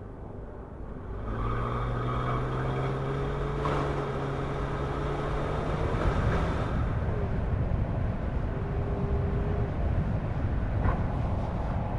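Car on the move: steady engine hum and tyre road noise, getting louder about a second in.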